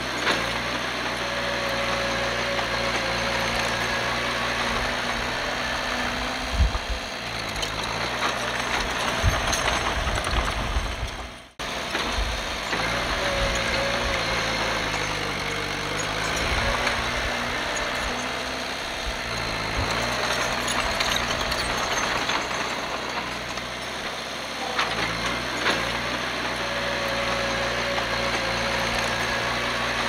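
Diesel engine of a Komatsu D51PX bulldozer running under changing load, its pitch rising and falling in slow swells, with low thuds mixed in for a few seconds before the middle. The sound cuts out for an instant about eleven seconds in, then carries on.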